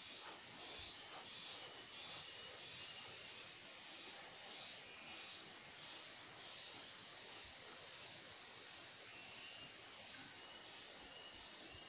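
Steady chorus of insects: one constant high-pitched whine with a higher trill pulsing in a slow, regular beat.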